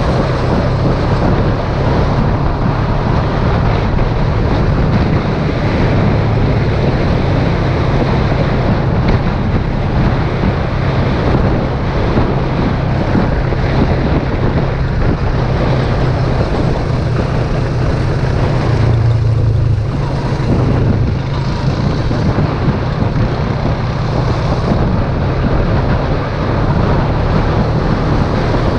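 ATV engine running steadily while riding, a constant low drone, with wind noise on the microphone.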